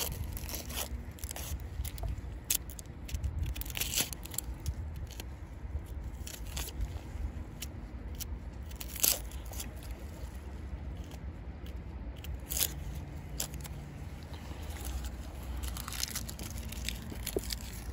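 Knife cutting a red onion on a wooden cutting board: irregular crisp crunches and scrapes of the blade through the onion and against the board.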